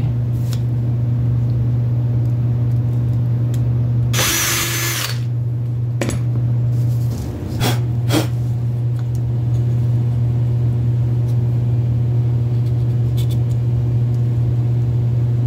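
A steady low machine hum runs throughout, with a brief scraping rustle about four seconds in and a few light knocks between six and eight seconds as plywood cutout pieces are handled and sawdust is brushed across a paper-covered bench.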